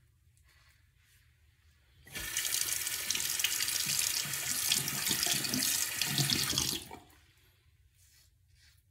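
Bathroom sink faucet running for about five seconds, water splashing as a safety razor is rinsed under it between shaving passes. It starts about two seconds in and shuts off sharply.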